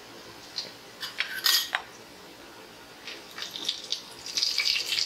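A metal spoon clinks and scrapes in an aluminium pressure cooker while whole spices fry in hot ghee and oil. There are a few sharp clinks about a second in, then stirring with dense crackling from about three seconds on that grows busier towards the end.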